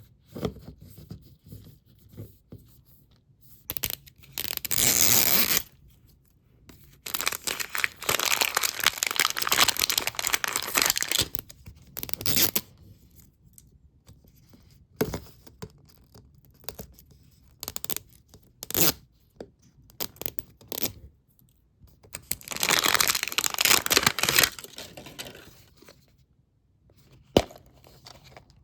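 Craft kit packaging being torn open and crinkled by hand, in several long rips with short handling clicks and knocks between them.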